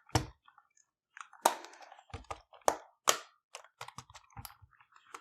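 Plastic shell of a PS4 controller being pulled apart by hand: a run of sharp plastic clicks and snaps as its clips release, a few louder ones among many small ticks.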